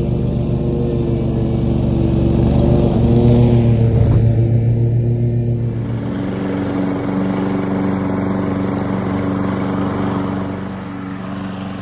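Commercial lawn mower engine running steadily while cutting grass. About six seconds in it gives way to the higher, different drone of a walk-behind push mower's small engine running.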